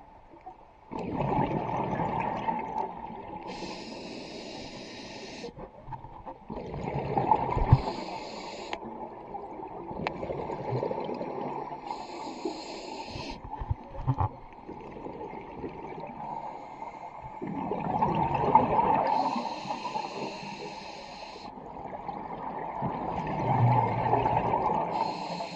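Scuba diver breathing through a regulator underwater: a high hiss on each inhale alternating with a burst of exhaled bubbles, about five breaths, one every five to six seconds.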